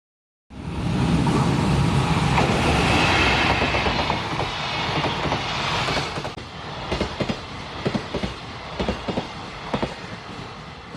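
JR Freight EF210 electric locomotive and its container train passing close by: a loud rush of the locomotive going past starts abruptly, then from about six seconds in the quieter rumble of the container flatcars with a steady clickety-clack of wheels over rail joints, the clicks coming in pairs.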